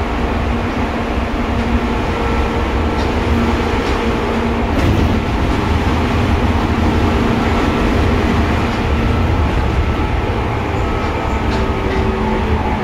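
Running noise of a Seibu 2000 series electric train heard inside the car above the line breaker: a steady rumble of wheels on rail with a constant motor hum, and a few faint clicks.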